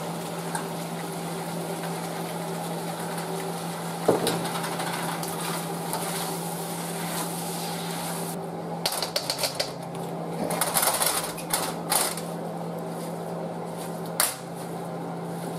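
Chow mein noodles and vegetables sizzling in a hot wok with a steady hiss. From about eight seconds in, metal utensils clack and scrape against the wok as the noodles are stirred. Near the end the sizzle drops as the wok is lifted off the burner to toss.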